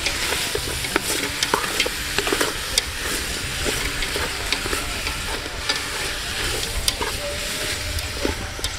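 Chicken pieces sizzling as they are stir-fried in a pot: a steady frying hiss with scattered clicks and scrapes of the stirring utensil against the pot.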